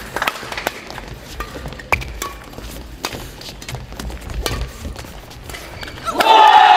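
Badminton rally: a series of sharp racket-on-shuttlecock hits and players' footsteps on the court floor, then a crowd breaks into loud cheering and shouting about six seconds in.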